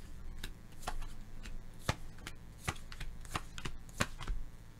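Tarot cards being drawn off a deck, flipped and laid down on the spread: a string of short, sharp card clicks and slaps at an uneven pace, two or three a second.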